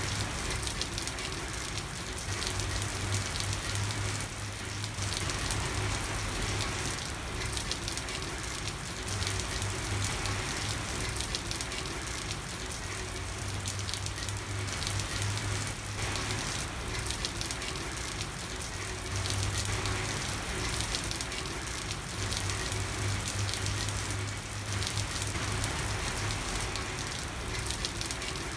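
Steady heavy rain falling on a street, a dense hiss of countless small drop hits. A low hum swells and fades underneath it several times.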